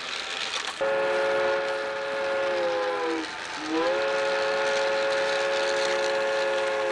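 Two long train-whistle blasts, each a chord of several tones sounding together: the first sags in pitch as it ends, and the second swoops up into pitch and holds steady.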